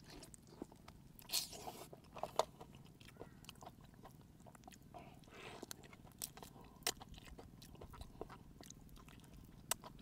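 Raw spiny lobster meat being bitten and chewed up close, faint, with many small wet clicks of the mouth and a couple of louder brief noises about a second and a half in and again about five and a half seconds in.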